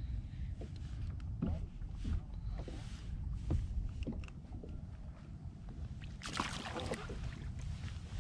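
Water lapping and sloshing against a fishing kayak's hull, with small irregular knocks and a louder splash about six seconds in.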